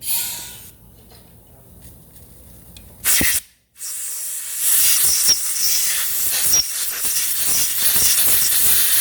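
Aerosol carburetor cleaner hissing as it is sprayed into a 6003 ball bearing to flush out the old grease: a short spurt at the start, another brief spurt about three seconds in, then a long steady spray from about four seconds on.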